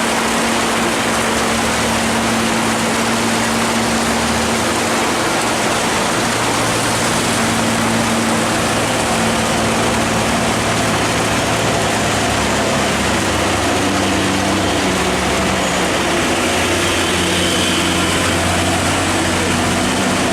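Low, steady note of a heavy Hino diesel vehicle engine labouring slowly, over the constant hiss of heavy rain. The engine note shifts in pitch about two-thirds of the way through.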